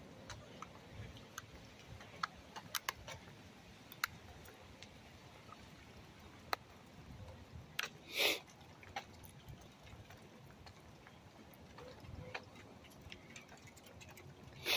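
Faint sounds of walking a small dog on a leash along a concrete sidewalk: scattered light clicks and ticks, with a brief scuffing noise about eight seconds in.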